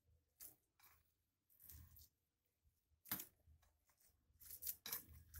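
Near silence with a few faint, brief squishes and scrapes of a hand mashing and mixing boiled-potato stuffing in a steel bowl.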